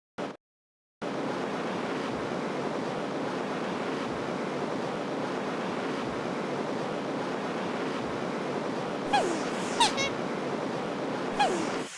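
A steady rushing noise that starts about a second in, with a few short sliding squeaky cries near the end.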